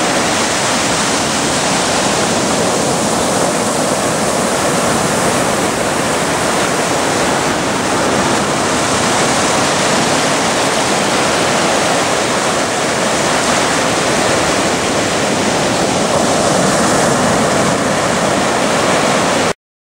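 Ocean surf breaking and washing up a sandy beach, a steady rushing wash of water that cuts off suddenly near the end.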